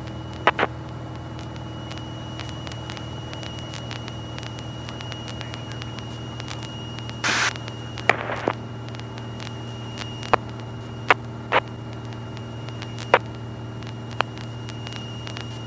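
The Continental O-300 six-cylinder engine of a 1963 Cessna 172E running steadily in cruise, a constant drone. Scattered sharp clicks and a short burst of crackling noise about seven seconds in ride over it.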